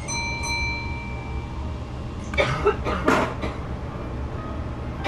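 A single bell-like chime rings once and fades over about a second and a half, over the steady low hum inside the rear cab of the standing Kintetsu Shimakaze train. A few short rough bursts of noise follow about two and a half seconds in.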